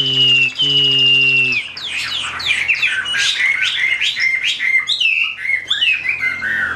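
Caged Chinese hwamei singing. It gives two long whistled notes, then a fast run of varied sweeping notes from about two seconds in. The bird is fired up by a female hwamei placed nearby.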